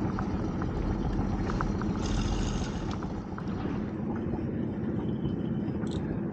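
Steady low rumble of wind and water around a small open boat at sea, with a few light clicks from a fishing reel being handled in the first couple of seconds.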